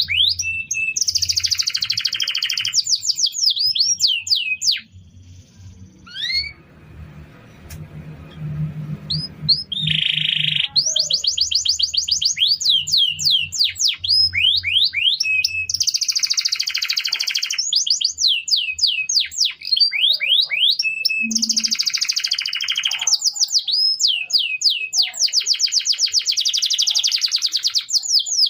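Domestic canary singing in long runs of rapid trills and fast repeated sweeping notes, with a quieter pause of a few seconds about five seconds in.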